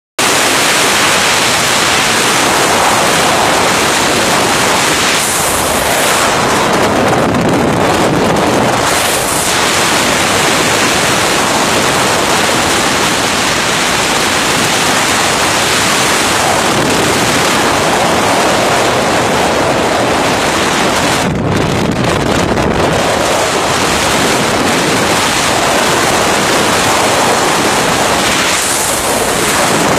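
Bura, the katabatic north-easterly wind of the Adriatic coast, blowing at storm strength straight into the microphone: a loud, continuous rush of wind noise with buffeting.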